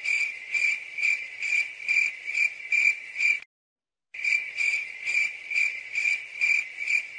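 Cricket chirping: a high, steady trill that swells about two to three times a second. It stops abruptly about three and a half seconds in and starts again after a short silence.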